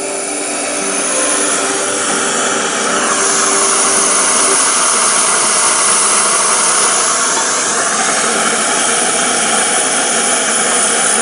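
A loud, steady rushing noise; background music with held notes fades out about four seconds in.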